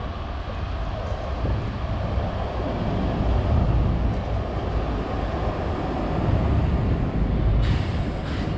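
Articulated city tram passing along the street: a low rumble that grows over the first few seconds and stays loud as it goes by, with a short hiss near the end.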